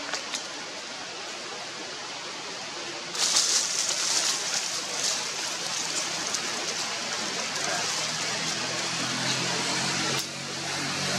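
Steady outdoor hiss that grows louder and brighter about three seconds in, with a low engine drone coming in near the end.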